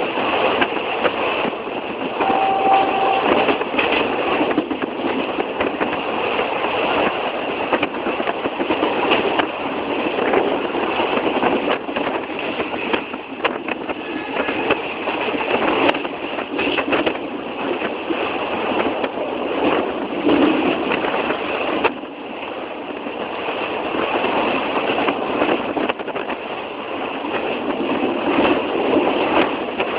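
Train running on the rails: a steady rattling rumble broken by frequent clanks and knocks. A short steady tone sounds briefly about two and a half seconds in.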